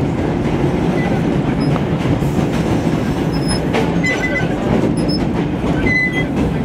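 Vintage R1–R9 subway train running through a tunnel: a steady rumble of steel wheels on rail with clacking over rail joints. Brief high wheel squeals come about four and six seconds in.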